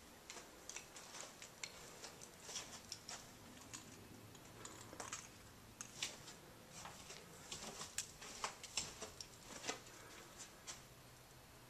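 Faint, irregular clicks and rustles of handling noise from a handheld camera being carried, in a quiet, empty room.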